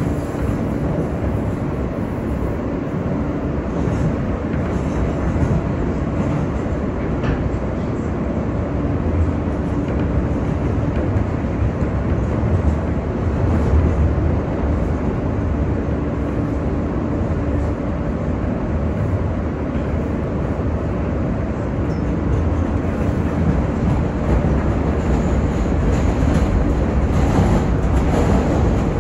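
R143 subway car in motion, heard from inside the car: a steady rumble of wheels on the rails with a faint steady hum.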